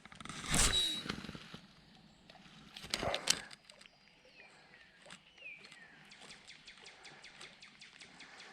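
Two brief swishes, then a fishing reel being wound in to retrieve a lure, a steady run of quick, even clicks at about four a second.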